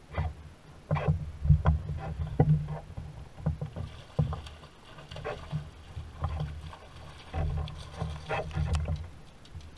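Choppy water slapping against a canoe hull, with wind buffeting the microphone in uneven gusts and scattered sharp knocks of gear against the hull.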